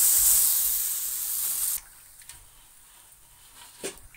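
Besan-and-curd batter pouring into hot oil tempering in an aluminium kadhai, hissing and sizzling loudly. The sizzle cuts off abruptly a little under two seconds in. It is followed by quiet and one light knock near the end.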